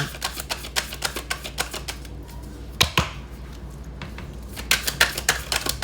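Tarot cards being shuffled: quick runs of flicking clicks as the cards slap together, a lull with one sharper knock about midway, then another run of clicks near the end.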